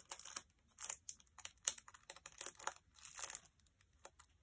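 Clear plastic packaging around a rolled diamond painting canvas crinkling in short, irregular crackles as fingers pick at it to find the loose end of the wrapping.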